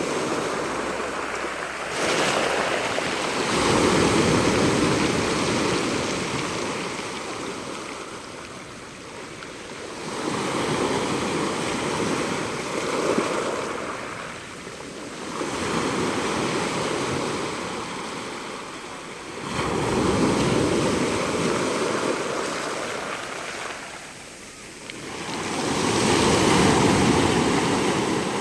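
Pacific Ocean surf breaking on the shore. Five waves come in one after another, each swelling to a rush and then dying away over several seconds.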